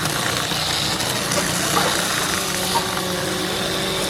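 Battery-powered Break Go Ga battle toy cars running in the arena, their small electric motors and gears whirring steadily, with a few sharp clicks.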